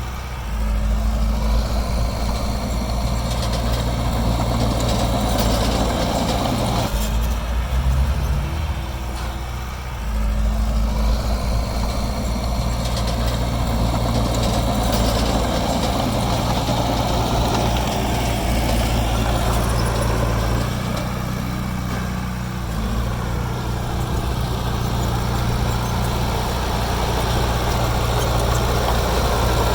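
Diesel engines of heavy earthmoving machinery running, with the engine note rising and easing several times as the load changes.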